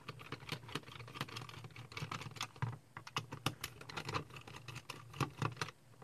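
Irregular rapid plastic clicks and taps as a small Phillips screwdriver backs the screws out of the plastic back case of a cheap DT832 digital multimeter and the case is handled.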